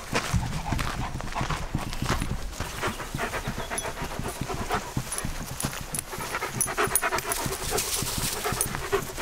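German shepherd panting in quick, rhythmic breaths, heard close up, with soft thuds of its steps mixed in.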